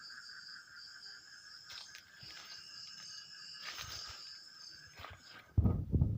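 Insects chirping in a steady pulsing trill, with a few faint clicks in the middle. A sudden loud low rumble cuts in near the end.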